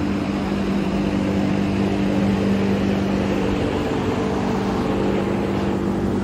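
Steady low mechanical hum with a constant low tone, like an engine or large fan running.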